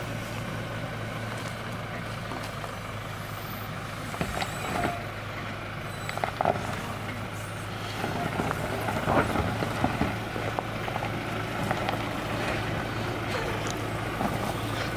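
Toyota Hilux pickup engine running at a low steady idle as the truck crawls down a rocky dirt track, with stones crunching and knocking under the tyres several times in the middle of the descent.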